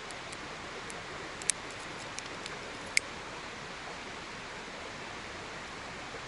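Steady, even rushing hiss of outdoor background noise, broken by two sharp clicks about one and a half and three seconds in.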